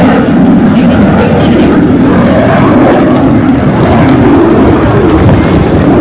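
Aircraft flying low overhead: loud, steady engine noise that wavers slowly in pitch.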